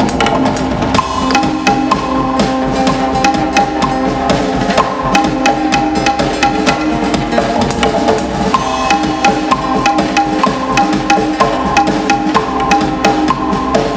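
Live music: a quick, steady percussion beat under held melodic notes that move from pitch to pitch.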